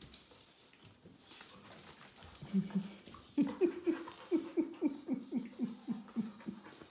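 A dog giving a rapid string of short yips, each falling in pitch, about four a second, starting a little before halfway through.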